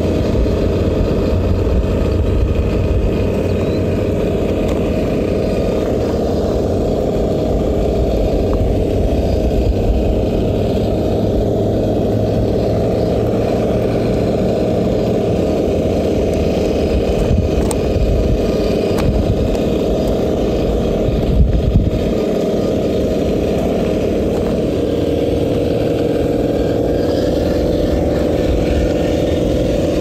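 Traxxas TRX-4 RC crawler's Hobbywing Fusion Pro brushless motor and drivetrain running as the truck drives over gravel. The sound is a continuous low drone that settles into a steadier hum near the end.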